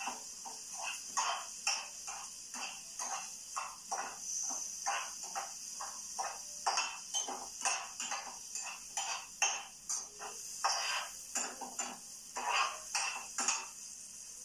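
A spoon scraping and knocking in a frying pan as sliced peppers, tomato and onion are stirred, in quick irregular strokes over a steady frying sizzle.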